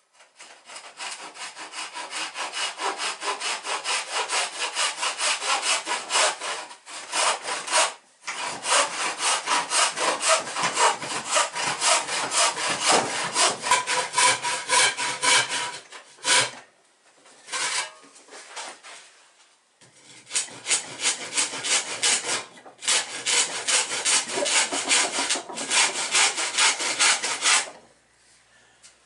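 Handsaw ripping a softwood board lengthwise, in quick regular strokes about three a second. The sawing stops briefly twice and pauses for a few seconds in the middle, then stops near the end.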